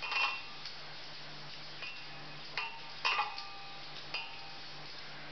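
Bangles on the wrist clinking in about six short, ringing clinks as the hands pat and press out a corn-flour roti; the loudest come right at the start and about three seconds in.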